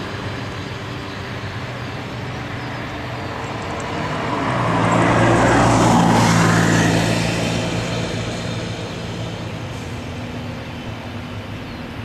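Boeing 747-400 jet engines passing on departure: the noise swells to a peak about six seconds in, the pitch drops as it goes by, and it then fades.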